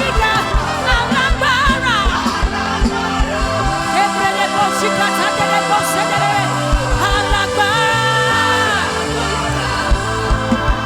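Live gospel worship music: a vocalist singing with vibrato and holding a long note near the end, over a band with a steady kick-drum beat that drops out for about two seconds midway.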